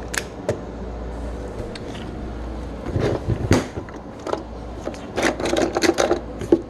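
1:64-scale toy vehicles being handled and set down: scattered light clicks and knocks, with a busier run of clicking and scraping in the last couple of seconds, over a steady low hum.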